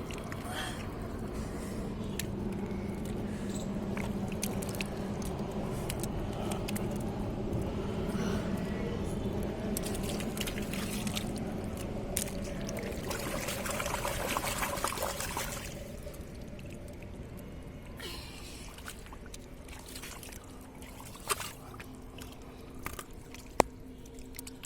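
Muddy water splashing and pouring as it is churned by hand, with a louder burst of splashing about two-thirds of the way through. A steady low hum runs underneath, and a couple of sharp clicks come near the end.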